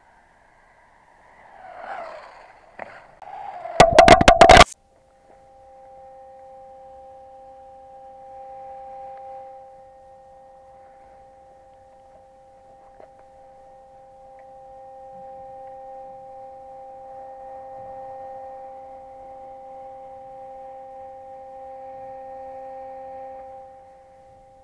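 Radio-controlled buggy on concrete: a loud, brief clatter about four seconds in, then a steady high two-note whine with faint running noise that swells and fades under it.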